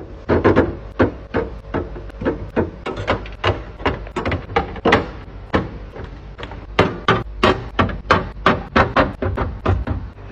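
Quick, uneven run of knocks and clatters, several a second, from containers and grocery items being set down and arranged in a refrigerator.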